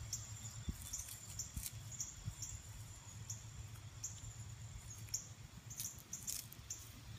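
Faint high-pitched insect chirps repeating about once a second over a low steady hum, with a few soft clicks.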